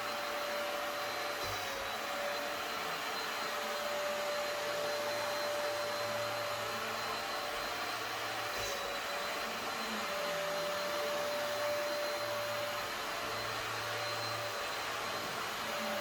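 Hoover lightweight carpet cleaner running steadily, its motor giving a constant whine over a broad suction rush.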